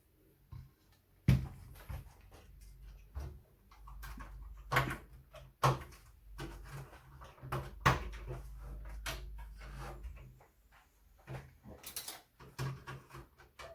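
Irregular knocks and clicks of hardware being handled as a floppy disk drive is worked out of a Compaq Portable computer's case, with a low rumble of handling through the middle few seconds.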